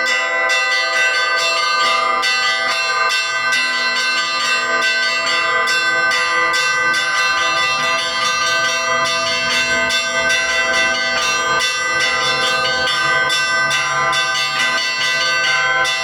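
Russian Orthodox church bells rung for a feast day: rapid, overlapping strikes over steady ringing tones, continuing without pause.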